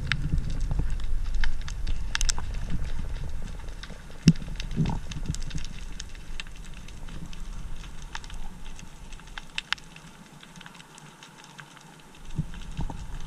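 Underwater ambience picked up by a camera submerged in the sea: a low rumble of moving water with scattered sharp clicks and crackles. The rumble drops away for a couple of seconds near the end, then returns.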